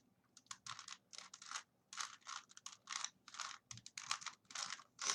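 3x3 Rubik's Cube faces being turned by hand in quick succession: a run of short plastic clicks, about three turns a second, as the algorithm that slots the middle-layer edge pieces is run.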